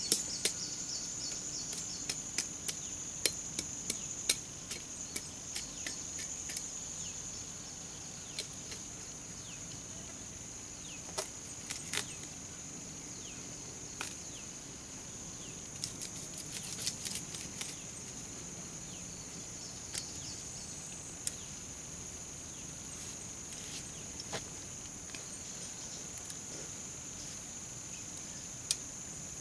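A machete blade chopping and scraping into soil around an elephant foot yam tuber: irregular sharp knocks, most frequent in the first several seconds and in a second cluster about halfway through, thinning out later. Under it runs a steady high chirring of insects.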